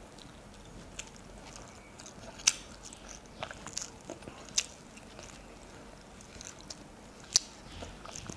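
A boy eating rice and chicken curry by hand: chewing and mouth sounds with a few sharp clicks, the loudest about two and a half seconds in and near the end.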